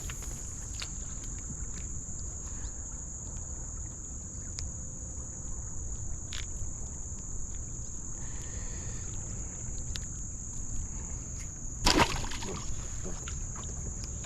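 Insects drone steadily at a high pitch over a low wind rumble, with scattered faint clicks. About twelve seconds in comes a sudden loud splash, a bass blowing up on a surface lure.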